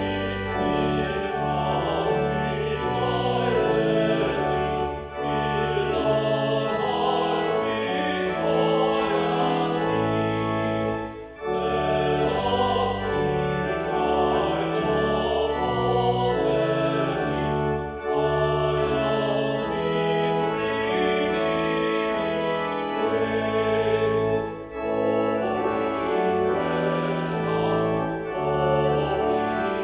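A hymn sung by a man's voice to organ accompaniment: sustained organ chords with a moving bass line under the melody, sung in lines with a brief break between each.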